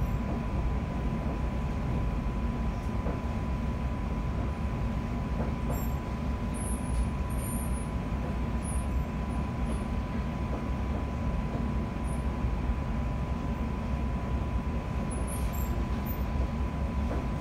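Cabin of a London Overground Class 710 electric train running at speed: a steady low rumble of wheels on the track, with a constant single tone above it.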